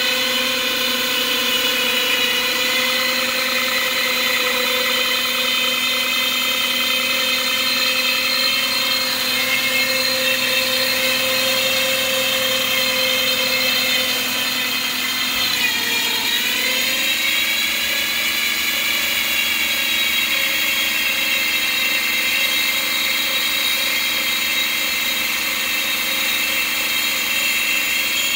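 2007 Lexus GS450h hybrid drivetrain running after a cold start with a loud, steady, high-pitched whine from underneath, at the back side of the engine. Its pitch sags and recovers about halfway through. The owner suspects a generator fault.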